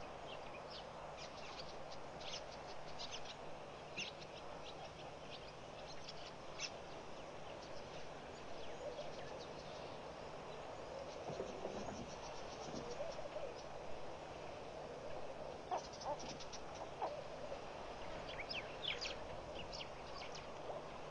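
Birds chirping in short, high calls scattered throughout, over a steady rushing background noise.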